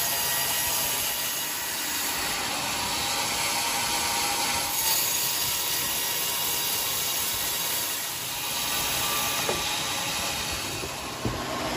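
Band sawmill cutting through a large teak log, a steady, even noise of the blade running in the wood. A short knock comes near the end.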